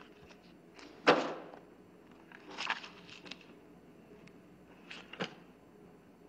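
Hardback books being handled on a stacked pile: a sharp knock about a second in, then a few lighter knocks and scuffs.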